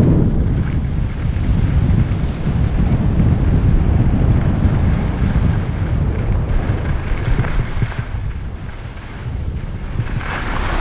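Wind buffeting the microphone of a camera moving at speed down a ski slope: a steady low rumble. A brighter hiss of edges scraping across packed snow rises briefly in the middle and again near the end.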